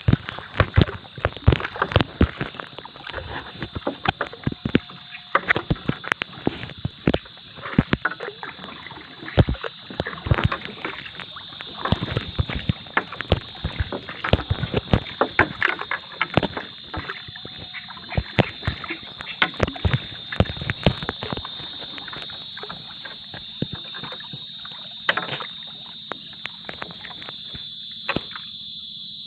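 Fishing net being set from a small boat: irregular knocks and clatter against the hull, dense at first and thinning out over the last third, with a steady high-pitched buzz underneath.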